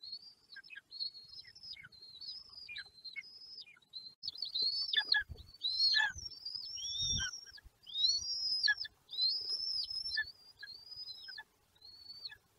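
Young long-legged buzzards calling from the nest in a rapid run of thin, high whistled calls, many dropping in pitch at the end. The calls grow louder and fuller in the middle, with a few low thumps there.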